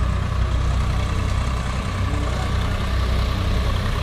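Diesel farm tractors running steadily under load as they haul trailers piled high with sugarcane, a deep, even engine drone.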